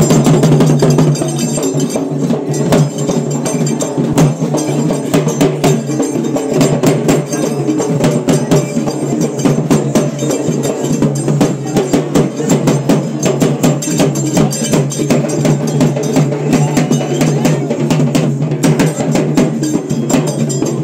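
Festival drums, including a rope-tuned barrel drum, beaten with sticks in a fast, dense rhythm over a steady low tone.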